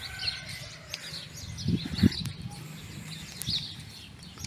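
Many small birds chirping and twittering in a dense, continuous chorus of short high calls. A brief low sound comes in about two seconds in.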